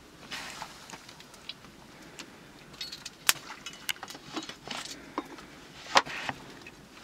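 Metal ladle scooping hot liquid from a cooking pot and pouring it into an aluminium pan: short splashes of pouring and sharp clinks of the ladle against the metal, several times.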